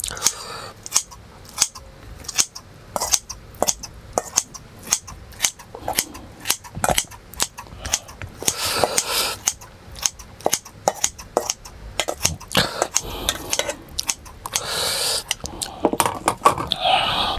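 Kitchen scissors snipping seasoned vegetable side dishes in a stainless steel bowl of rice: a long run of sharp, irregular snips and clicks, with the blades now and then clinking against the steel bowl.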